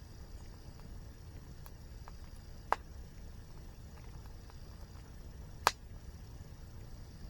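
Wood fire crackling: a few faint ticks and two sharp pops about three seconds apart, over a steady low rumble.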